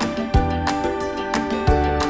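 Upbeat background music with a steady beat and plucked guitar, in a Latin style.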